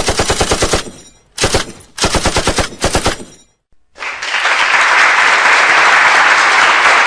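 Automatic machine-gun fire sound effect, rapid evenly spaced shots in three bursts over about three seconds. After a brief gap, a steady rushing noise begins about four seconds in.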